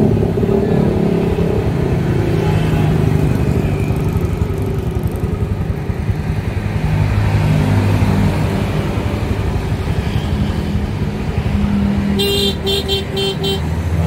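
A motorcycle engine running, its pitch rising and falling a little. Near the end come about five quick short beeps from the Suzuki Shogun's newly fitted electric horn, tested after the old one had stopped working.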